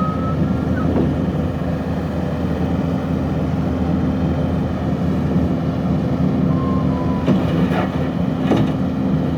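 Diesel engine of a Kubota SVL75-2 skid steer loader running steadily with a steady hum, with a few short clanks in the last two seconds.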